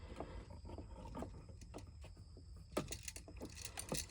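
Small clicks and scrapes from hands and a tool working wires onto an electrical outlet receptacle, with two sharper clicks near the end, over a steady low rumble.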